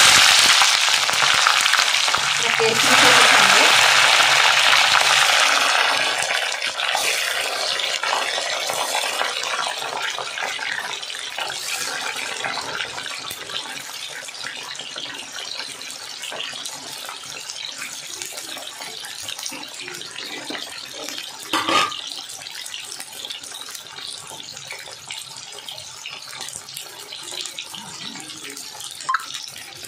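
Chopped vegetables (cauliflower, beans, potato, carrot) go into hot oil in a kadai and sizzle loudly at once. The sizzle grows louder again a few seconds in, then slowly settles to a quieter, steady sizzle. There is a single sharp knock about 22 seconds in.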